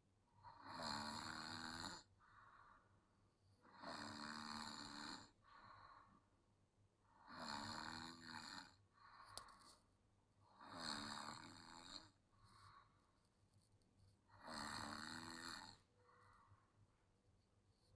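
A child snoring in a steady rhythm: five snores, each about a second long, coming about every three and a half seconds, with a fainter sound between each pair.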